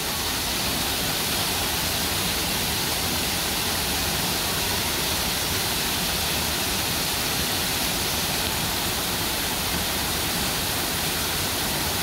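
Tall waterfall crashing down a rock face onto rocks, a steady, even rush of water.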